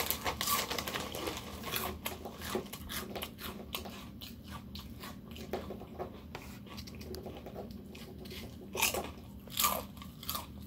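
A person crunching and chewing ridged potato chips: a steady run of crisp crunches, with louder bites at the start and twice near the end.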